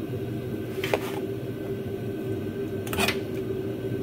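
Two short, sharp metallic clinks or scrapes, about a second in and about three seconds in, as a pry tool works the Ford 8.8 rear differential cover loose, over a steady shop hum.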